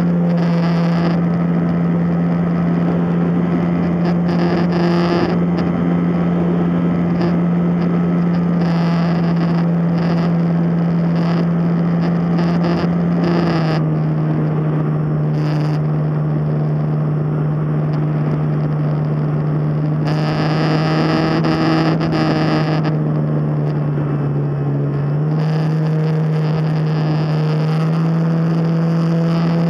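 Drone propellers and motors humming steadily, heard close from the aircraft's own camera, with small pitch changes as the throttle shifts: the tone steps down about halfway through, dips lower briefly, then rises again near the end.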